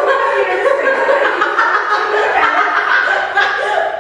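Women laughing hard and without a break, a loud, shaky, high-pitched laughter.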